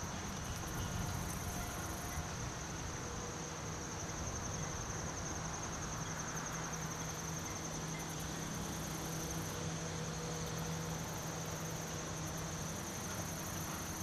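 Insects trilling continuously in a high-pitched, rapidly pulsing drone, with a low steady hum beneath.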